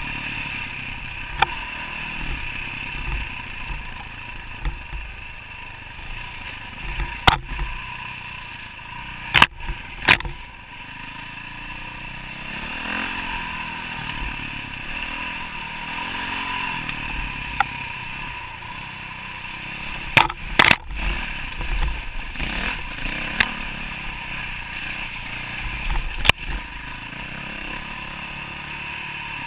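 Dirt bike engine running under the rider as it rides a rough trail, its pitch rising and falling with the throttle, mixed with wind noise. Several sharp knocks and clatters cut through, the loudest near the middle and again around two-thirds of the way in.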